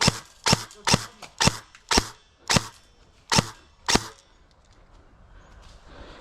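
Airsoft gun firing a string of single shots, about two sharp cracks a second, stopping about four seconds in.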